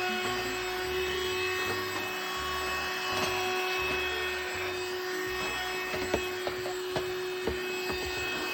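Kimitech cordless handheld vacuum running, its small motor giving a steady whine over the rush of air, picking up crumbs. A few sharp clicks come near the end.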